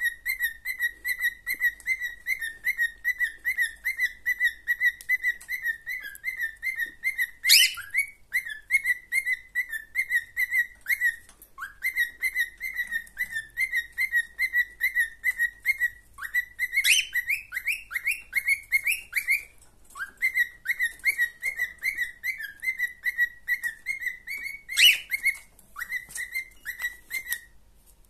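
Cockatiel whistling: a long run of short, repeated notes at nearly one pitch, several a second. Three times it breaks into a louder call that sweeps up in pitch.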